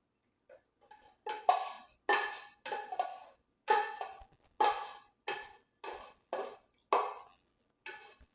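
Background music made of short struck, ringing notes at about two a second.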